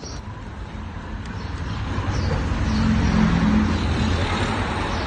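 A car driving past on the road, its tyre and engine noise growing louder to a peak about three seconds in and then easing off slightly.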